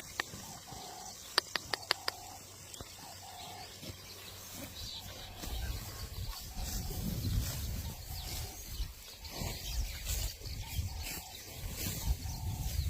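Outdoor rural ambience with a bird calling over and over in short, evenly spaced notes, and a quick run of sharp clicks about two seconds in. A low rumble comes in from about halfway.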